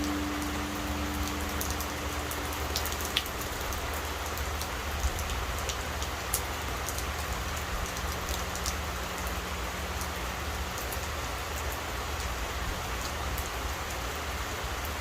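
Steady rain with scattered drip taps, over the low hum of a struck temple bell dying away: its higher tone fades within the first few seconds and a deeper tone lingers for about ten seconds.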